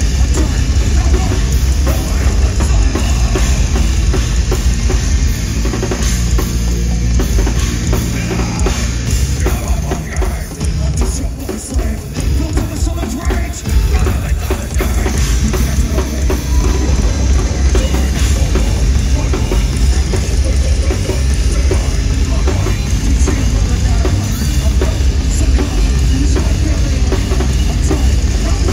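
A metal band playing live through a concert PA, with heavy drums and bass drum driving the song and a singer on the microphone. The sound drops and thins out briefly a little before the middle, then comes back at full weight.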